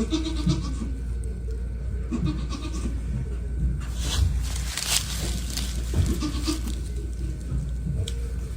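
Young goats bleating in several short calls spread through the stretch, over a steady low hum, with a brief burst of noise around the middle.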